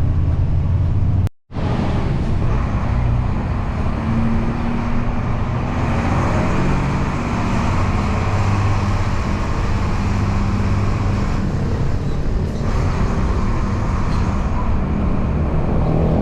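Motor vehicle running: a steady engine drone with road noise, with a brief break in the sound about a second and a half in.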